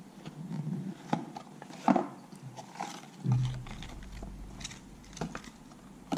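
Handling noise as a smartwatch and its packaging are taken out and turned over in the hands: scattered clicks, taps and rustles, with a brief low hum about three seconds in.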